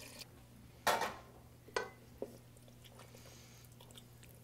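Three short knocks in the first half, the first a little longer, as a wooden spoon works in a stainless steel stock pot of squash soup, over a low steady hum.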